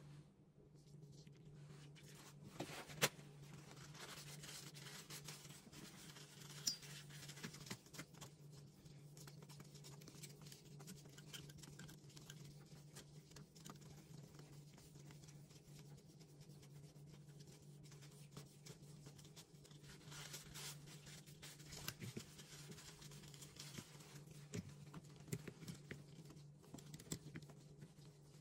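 Faint bench handling: gloved hands working small firearm parts and a paper towel, with light rustling and scattered small clicks of metal. Two sharper clicks come about 3 and 7 seconds in, over a steady low hum.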